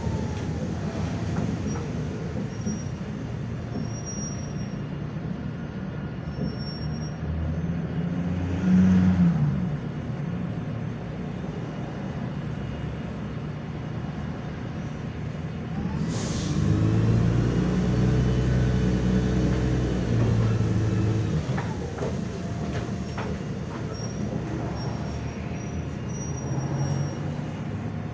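Inside a MAZ-105 city bus under way: the diesel engine runs steadily under the rumble of the cabin, with a short loud bump about nine seconds in. Past the middle the engine pulls harder for about five seconds as the bus speeds up, then eases off.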